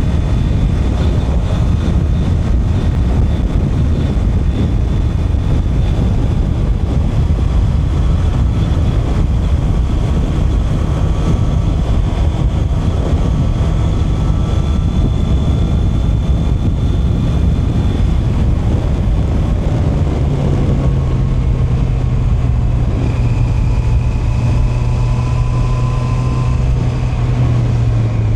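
Honda CB650R's inline-four engine running under way, with heavy wind rumble on the microphone. Past the middle, a steady engine note comes through more clearly and holds.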